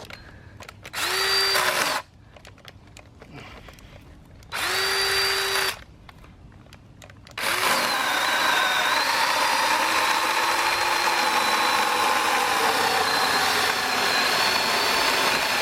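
Corded electric chainsaw lopper's motor, triggered in two short bursts of about a second each, each spinning up with a rising whine. It then runs continuously for about eight seconds, its pitch dipping briefly as the chain bites into the wood.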